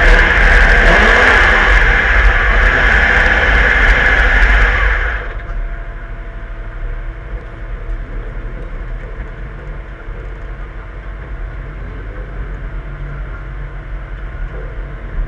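Holden Commodore Group A racing car's V8 running hard at high revs for about five seconds, then dropping suddenly to a much quieter low engine rumble.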